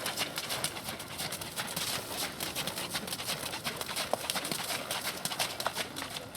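Hoofbeats of a Thoroughbred horse under saddle, a run of irregular clip-clop strokes.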